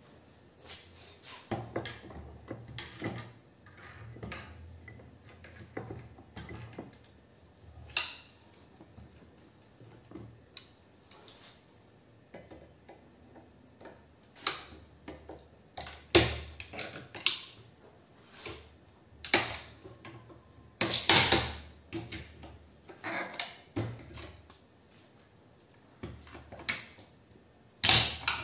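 Sheet-steel casing of a fluorescent-lamp ballast clanking and clicking as it is clamped in a metal bench vise and gripped and pried with pliers. The knocks and scrapes come irregularly, with the loudest run of clanks about two-thirds of the way through.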